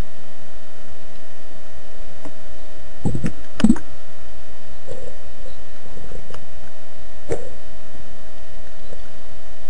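Underwater recording through a camera's housing: steady hiss with a constant electronic hum and a handful of short sharp clicks, the loudest a little under four seconds in.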